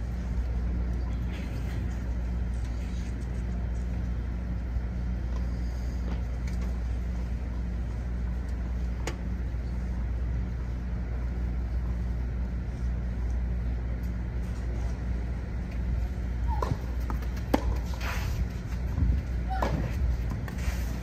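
Tennis rally: a ball struck back and forth with rackets, several sharp hits in the last few seconds. A steady low rumble runs under it throughout.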